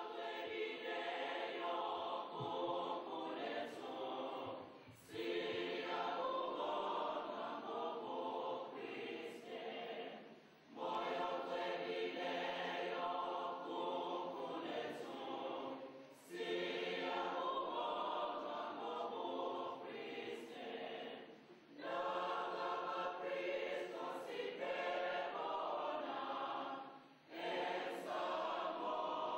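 Church choir singing a hymn together, in phrases of about five seconds with a short breath-pause between each.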